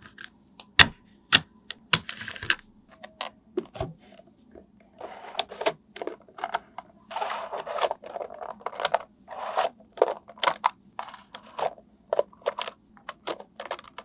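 Small magnetic balls clicking and clattering against each other as strips of them are set in place, with a few sharp single clicks in the first two seconds, then denser rattling runs of clicks.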